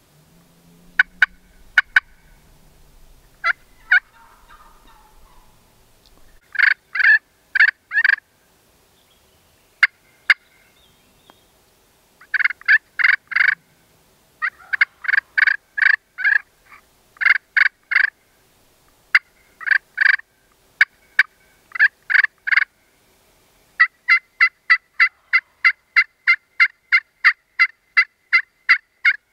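Turkey yelping: loud, short, sharp calls in runs of two to five, ending in a long even run of about fifteen at roughly three a second.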